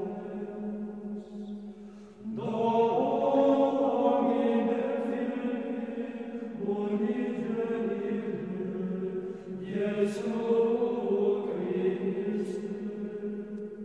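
Slow choral chant: voices holding long sustained notes in overlapping phrases. A new phrase swells in about two seconds in, and again around seven and ten seconds.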